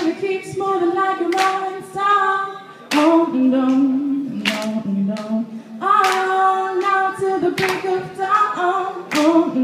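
A woman singing a slow melody in held notes, with regular hand claps keeping a steady beat under her voice.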